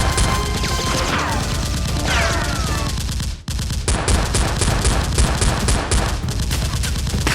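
Rapid automatic gunfire sound effects, about five shots a second, with a short break about three and a half seconds in and a few falling whistles among the shots.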